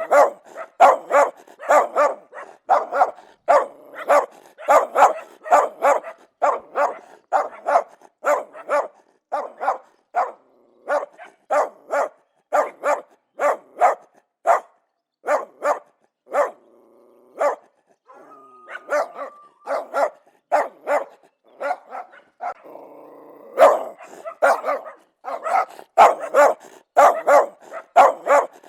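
Angry dog barking aggressively in rapid, repeated barks, about two a second. Past the middle the barking breaks off for several seconds of lower, drawn-out sounds, then the fast barking resumes.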